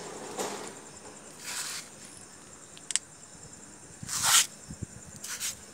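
Crickets trilling steadily and faintly in the background. Over them come several short rushing noises, the loudest about four seconds in, and one sharp click near the middle.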